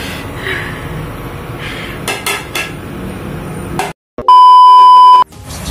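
Plates and dishes clinking as they are handled at a kitchen sink, then after a brief dropout a loud, steady test-tone beep about a second long, the tone that goes with TV colour bars.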